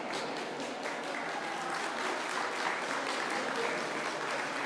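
Ringside audience applauding steadily, many hands clapping.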